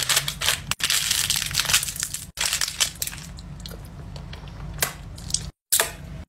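Crinkling and crunching of something being crushed in the hands, a dense crackle that is loudest for the first couple of seconds and then carries on more faintly.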